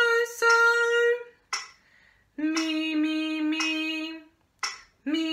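A woman singing solfège syllables unaccompanied in a sight-singing exercise: a held higher note for about a second, then a long lower note, and another lower note starting near the end.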